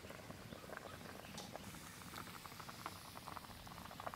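Goat intestine and potatoes boiling in water in an iron kadai: faint steady bubbling with many small irregular pops.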